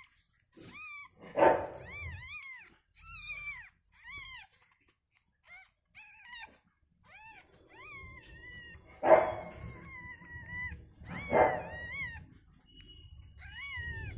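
Newborn kitten mewing over and over in short, high, rising-and-falling squeaks. Three louder, harsher sounds cut in, once early and twice later on.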